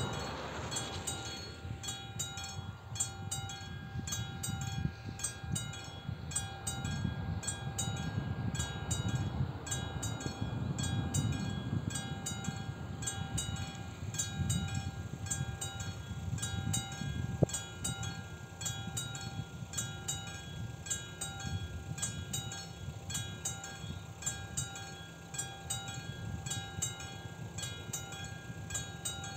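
Level-crossing warning bell of an AŽD 71 crossing signal (a classic electromechanical bell) ringing continuously in even, repeated strokes, with a low rumble of wind under it. The tyre noise of a car that has just crossed fades out in the first second, and one sharp click is heard a little past halfway.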